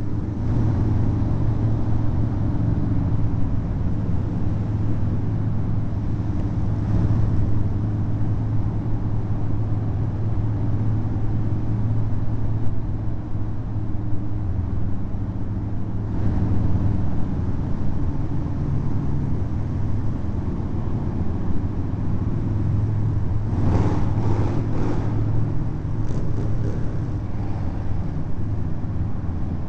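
Harley-Davidson V-twin motorcycle engines running at a steady cruise in a road tunnel, a continuous low engine note, with a few short bursts of noise near the end.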